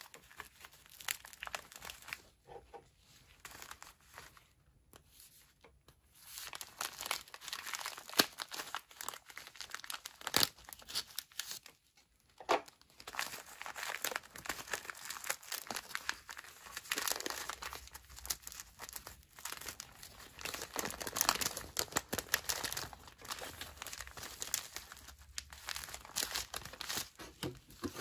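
Food packets and sachets crinkling and rustling as gloved hands handle them and pack them into a cardboard box, in irregular bursts with sharp little crackles, sparse for the first few seconds and then almost continuous.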